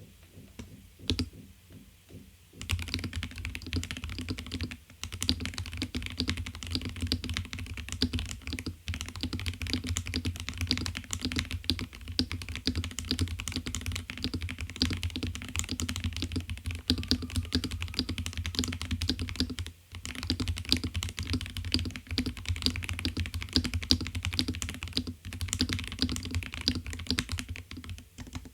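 Typing on a stock Dukharo VN66 mechanical keyboard, a 65% board with a snap-on plastic case and Poron foam under and above the PCB. Rapid, continuous keystrokes start about two and a half seconds in after a single click, broken by a few brief pauses.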